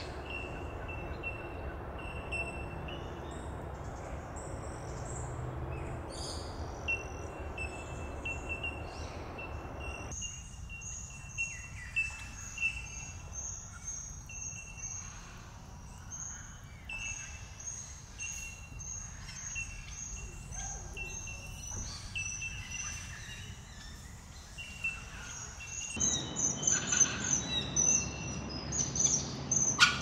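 Wetland birds calling: short, high chirps repeated about twice a second, with other birds' calls mixed in over a steady background hiss. The chirping grows louder and quicker near the end.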